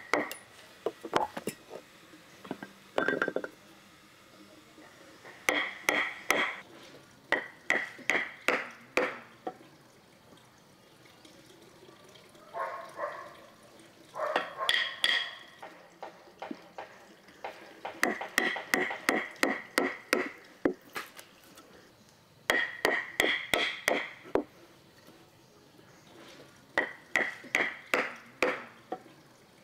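Hammer driving nails into wood: runs of quick blows, about five a second, each with a short metallic ring, broken by pauses between nails.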